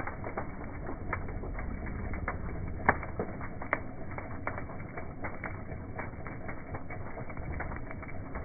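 Large bonfire burning: wood crackling with irregular sharp pops over a steady low rumble of the flames, the loudest pop about three seconds in.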